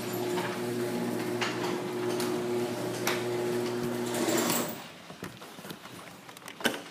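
A small motor hums steadily with a light rattle, then shuts off about four and a half seconds in. A single sharp click follows near the end.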